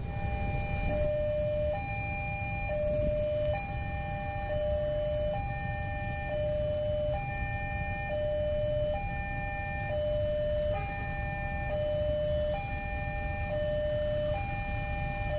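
Railway level-crossing warning alarm sounding a two-tone electronic chime, a higher and a lower note alternating evenly about once a second, signalling that a train is approaching. A low rumble runs underneath.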